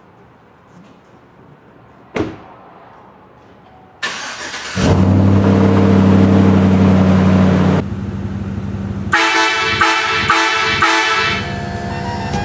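Truck-mounted air train horn sounding one long, loud, steady chord for about three seconds. Music with brass starts about a second after the horn stops.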